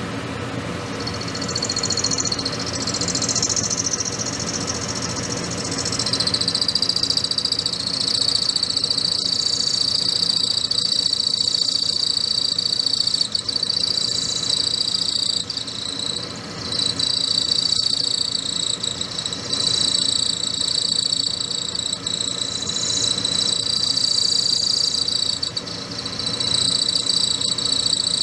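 Metal lathe running with a cutting tool squealing against the spinning metal collet blank: a high-pitched squeal that comes in about a second in and grows stronger from about six seconds, over the steady hum of the lathe. The machinist puts it down to running the spindle too fast.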